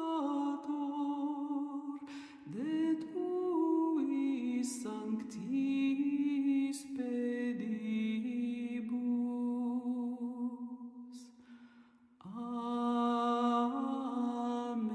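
Slow singing in long held notes that step up and down in pitch, with a brief pause about twelve seconds in before the next phrase begins.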